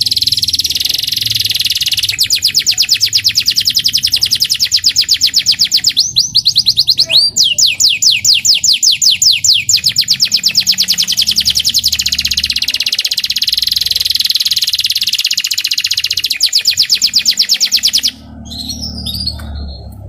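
Young local canary singing a long, loud song of fast rolling trills (riwikan), the notes repeating very quickly in high runs, which breaks off near the end.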